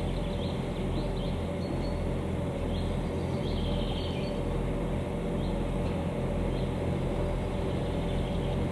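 Narrow-gauge diesel locomotive running steadily as it approaches, hauling a full train of peat wagons; the engine hum grows slowly louder. Short bird chirps sound over it now and then.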